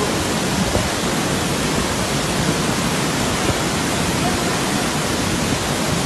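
Waterfall in flood, muddy water rushing down over rocks with a loud, steady, unbroken rush.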